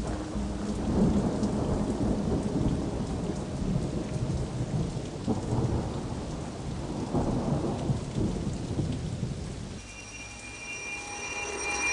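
Steady rain with rolling thunder, swelling and ebbing in low rumbles. About two seconds before the end the storm dies down and a steady high ringing tone fades in and grows louder.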